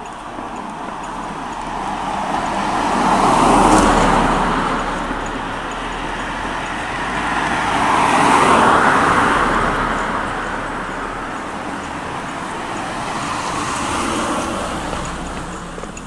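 Cars passing on a road, one after another, each swelling up and fading away: one about four seconds in, another near the middle, and a quieter one near the end.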